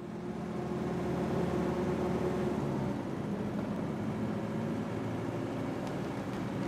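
Steady drone of a vehicle travelling at speed, engine hum under road and wind noise, fading in at the start.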